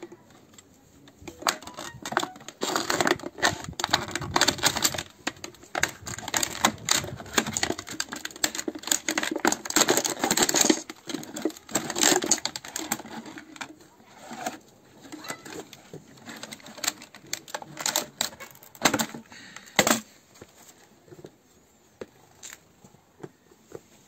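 Thin clear plastic bottle crackling and clicking as gloved hands work it against a metal tray, a dense run of clicks for the first ten seconds or so, then sparser, with one sharp click late on.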